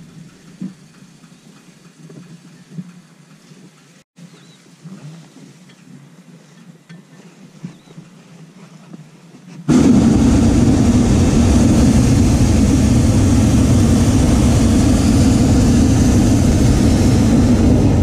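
Hot-air balloon's propane burner firing: a loud, steady roar that starts suddenly about ten seconds in and holds at an even level. Before it there is only a quiet stretch with a few faint knocks.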